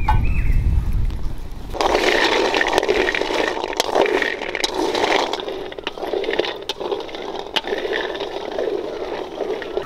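Jackfruit seeds being stirred in a dry aluminium wok with a wooden spatula: a steady scraping rattle of the seeds against the metal, starting about two seconds in after a low rumble.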